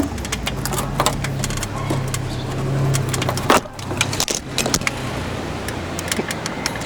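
A vehicle engine running with a steady low hum that drops away about three and a half seconds in, under irregular metallic clicks and scrapes.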